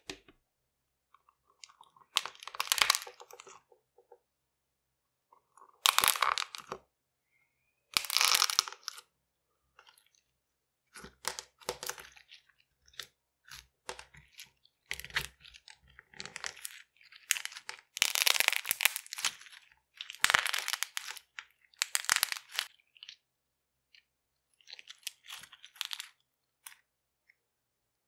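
Balls of popping clay crackling and crunching as they are squeezed through a layer of clear slime, in about ten separate bursts of a second or two each.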